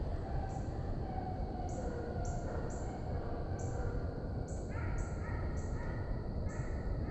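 A pack of deer-driving hounds baying on a chase, several long, drawn-out voices overlapping and growing stronger about two-thirds of the way in. Insects pulse high above them about twice a second.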